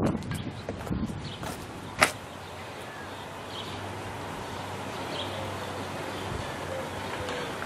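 Quiet outdoor ambience: a steady low background hum with faint, scattered bird calls, broken by a single sharp click about two seconds in.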